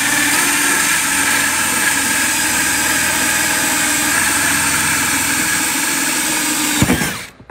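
DeWalt cordless drill running steadily as a hole saw with a pilot bit cuts through the plastic wall of a tool box. About seven seconds in the motor stops and winds down.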